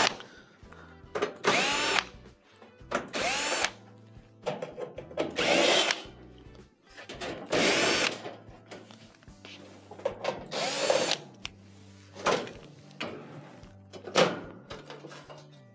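Cordless drill-driver with a 1/4-inch hex bit backing screws out of a range's sheet-metal rear panel, in about five short runs that each wind up and down in pitch. Near the end there are two sharp knocks as the loosened metal panel is handled.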